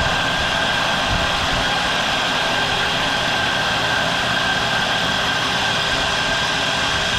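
Steady machine noise: a constant whirring hiss with a single high tone held at one pitch.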